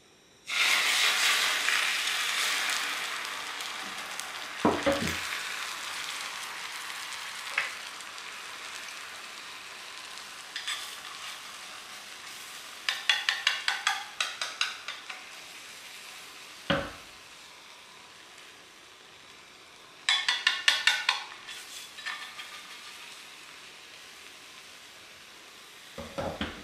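Beaten egg for dashimaki tamago poured into a hot, oiled rectangular tamagoyaki pan. It sizzles loudly at once, and the sizzle slowly dies down. Twice, long cooking chopsticks tap rapidly against the pan, and there are a few single low knocks.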